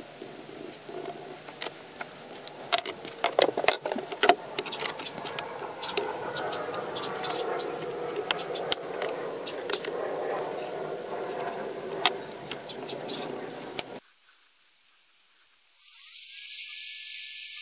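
Small clicks, taps and scraping of tools being handled and marking out on a wooden bench. After a short silence, a Ryobi angle grinder is switched on: its whine rises quickly and settles into a steady whine with a hiss as the disc runs free.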